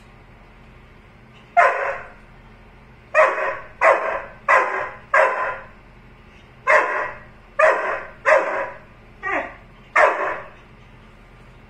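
A yellow Labrador-type dog barks at its own reflection in a mirror: about ten sharp barks in irregular bunches of one to three, each fading briefly in a small hard-floored room.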